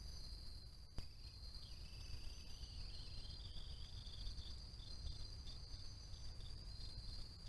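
Crickets trilling in a steady high note, with a second, lower insect call joining about two seconds in and breaking into short pulses; a single click about a second in, over a faint low rumble.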